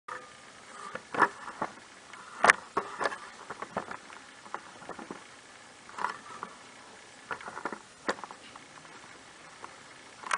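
Irregular scattered clicks, taps and rustles, the sharpest a knock about two and a half seconds in.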